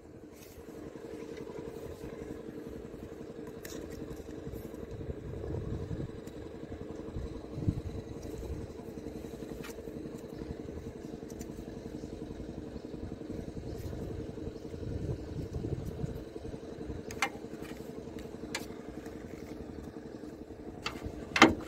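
An engine running steadily with a constant hum, over a few light metallic clicks and taps of a screwdriver working on a sensor connector; one sharper click comes near the end.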